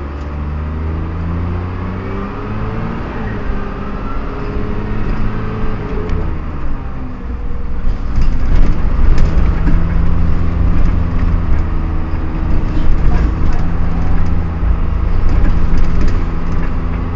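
Dennis Dart single-deck bus driving, its engine and gearbox rising in pitch and then falling over the first few seconds, then running louder and steady from about eight seconds in, with a whining tone from the driveline.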